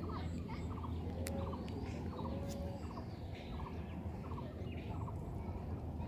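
Short rattling animal calls, each a quick run of clicks, repeated about once a second, with a steady low hum underneath.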